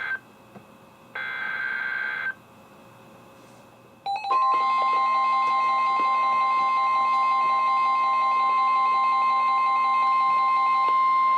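NOAA Weather Radio emergency alert signal: a short burst of the warbling SAME digital header ends at the start and another follows about a second in, then about four seconds in the steady 1050 Hz warning alarm tone starts and holds, with a lower tone pulsing rapidly underneath it until near the end.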